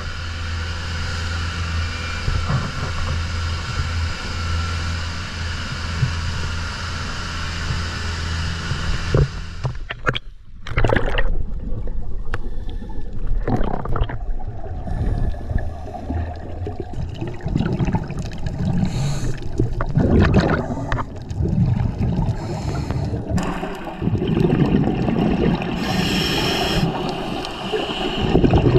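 Outrigger bangka boat's engine running steadily with a low hum. About ten seconds in this cuts to underwater sound: repeated irregular surges of gurgling bubbles from scuba divers' exhaled air.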